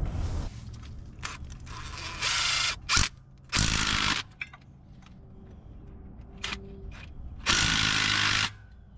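A tool fastens the mounting bolts of a pump on a small-block Chevy 350 in three short runs, each half a second to a second long, about two, three and a half and seven and a half seconds in.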